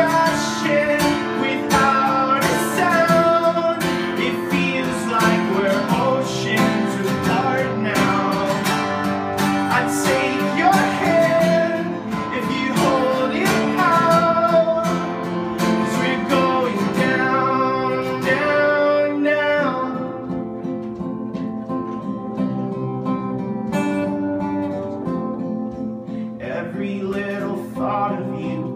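Acoustic guitar strummed with a man singing over it. About two-thirds of the way through, the singing drops away and the guitar plays on a little softer.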